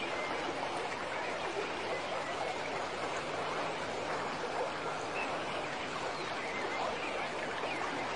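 River water rushing and lapping steadily around a small boat.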